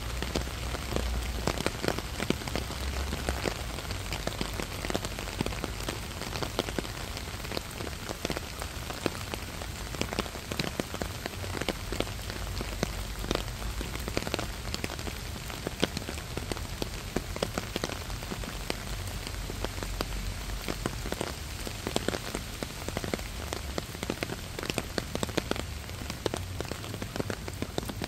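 Steady rain falling on leafy garden plants and the ground, with many individual drop hits sounding sharply close by. A soft low rumble comes and goes underneath.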